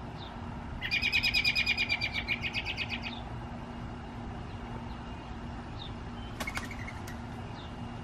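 American robin giving a rapid call of quick repeated high notes, about ten a second, starting about a second in and fading over about two seconds. A couple of sharp clicks and a short note follow about two-thirds of the way through, with faint single chirps now and then.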